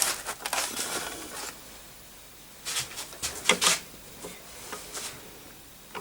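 Scattered clicks, taps and rustles of hands handling small computer hardware on a workbench, in two clusters with a quieter stretch between them.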